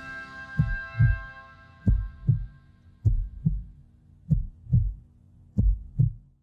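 A steady rhythm of paired low thumps, like a heartbeat, about one pair every 1.2 seconds, under a ringing chord that fades out over the first two seconds. The sound cuts off abruptly near the end.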